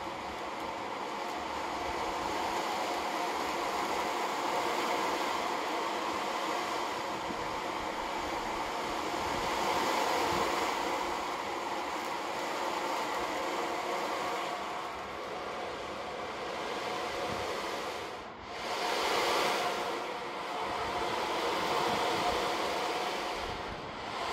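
Ocean drum: beads rolling across the skin of a frame drum held flat and slowly tilted, a steady rushing hiss that swells and ebbs. About eighteen seconds in it briefly drops away, then swells up again.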